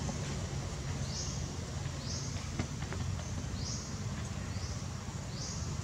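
Forest ambience: a short, high chirp that rises in pitch repeats about once a second over a steady low hum.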